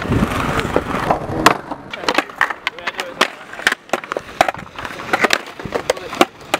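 Skateboard on concrete: about a second and a half of rolling noise, then a run of irregular sharp clacks and knocks as the board's deck and wheels hit the ground.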